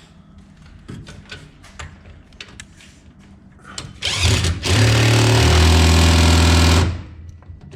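Cordless impact driver run a short burst and then for about two seconds, with a steady pitched whir that shifts once partway and stops sharply; light clicks of handled tools and hardware come before it.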